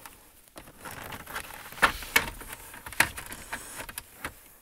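Plastic dash trim bezel of a Ford Escape creaking and its retaining clips clicking as it is pried loose from the dashboard, with several sharp clicks about two and three seconds in.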